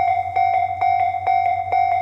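Japanese railway level-crossing warning bell ringing its repeated electronic clang, about two strikes a second: the crossing is closed for an approaching train.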